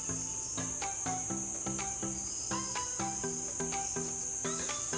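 Crickets trilling in a continuous high-pitched drone, over soft background music with short plucked notes and a light, steady beat.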